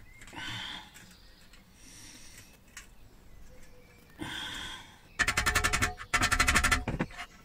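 A ball-pein hammer rapidly tapping the sheet-steel battery-charger case against an anvil: two quick bursts of sharp, ringing metal strikes, about a dozen a second, in the last couple of seconds. Earlier come two brief scrapes as hands work at a fitting inside the box.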